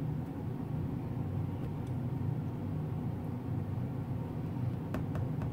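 Steady low machine hum with several held low tones, as of a running computer or room ventilation, and a few faint clicks near the end.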